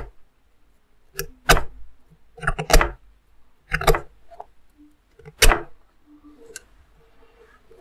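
A handful of sharp clicks and taps at irregular intervals, some in quick pairs, from a thin NiTi orthodontic archwire and a steel artery forceps being handled while the wire is bent by hand.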